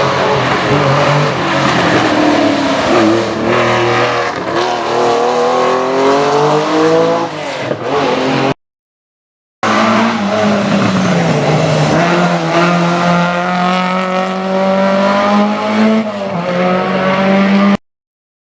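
Rally cars driven hard on a special stage: engines revving up and down through gear changes as they go past, one car and then, after a brief silent gap, another.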